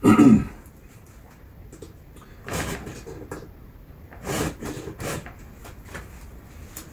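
A round file rasping across the cutters of a chainsaw chain by hand, in a few separate short strokes with pauses between, after a brief louder sound at the very start. The chain is new and only gets a light touch-up.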